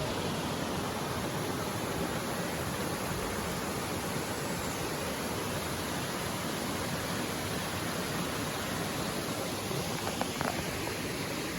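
Steady rushing of a waterfall and its stream, an even hiss of falling and flowing water.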